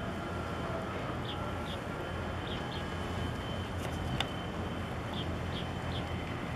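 Steady low rumble of a Horizon flybridge motor yacht's engines and bow wash as it cruises past at speed. Short high bird chirps come every so often over it.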